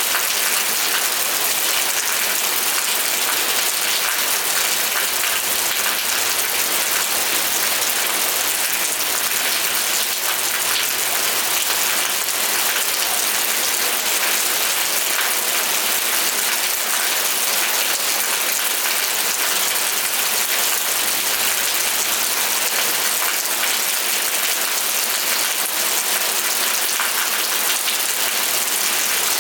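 Steady rain falling, a dense even hiss of drops on surfaces with no let-up.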